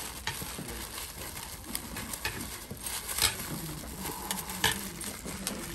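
Thin tissue paper rustling and crinkling as a small item is wrapped by hand, with scattered light clicks and taps.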